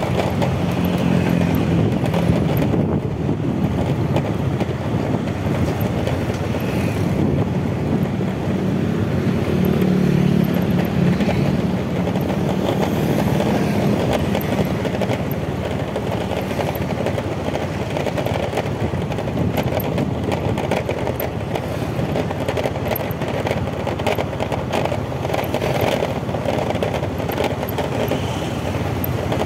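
Motorcycle engine running at low city speed, with wind and road noise and the surrounding street traffic. The engine hum grows louder in the first few seconds and again about a third of the way in.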